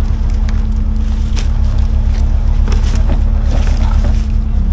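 Stuck compact excavator's diesel engine running close by, a steady low throb, while the operator tries to swing the machine around.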